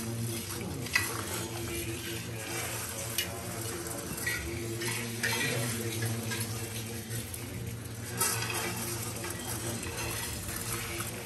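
Rice grains poured and swept over metal mandala offering plates by several people at once: a patter of grains with scattered sharp clinks of metal. A low steady drone of voices runs underneath.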